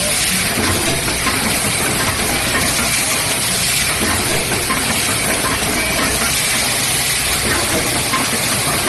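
Automatic rotary cap assembly machine running: a steady, even hissing machine noise with no pause or clear beat.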